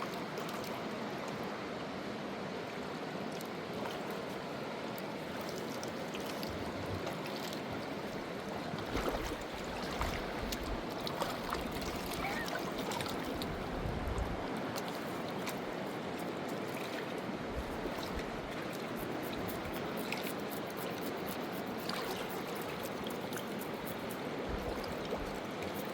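Steady rushing of the fast-flowing Khersan river, with a few low thuds scattered through it.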